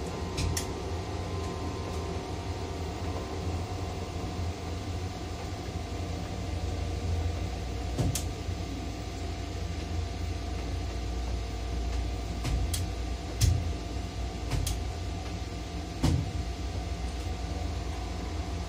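Tower crane running, heard from the operator's cab: a steady low electric-drive drone with a few steady tones above it. Several sharp clicks stand out, the clearest about eight seconds in and again around thirteen and sixteen seconds.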